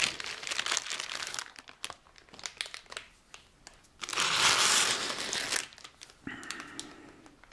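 Thin clear plastic bag crinkling as hands rummage in it and pull out small model car wheels. Soft rustles and small clicks come first, then a louder crinkle about four seconds in that lasts over a second.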